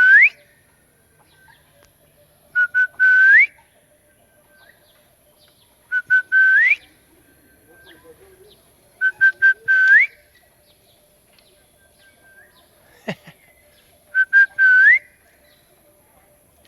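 A rainforest bird calling loudly: two or three short whistled notes on one pitch, then a longer note that rises, repeated five times about every three seconds.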